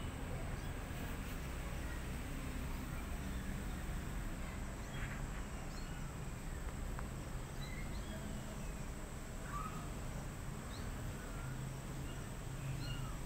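Outdoor ambience: a steady low hum with scattered faint, short high chirps dotted through it.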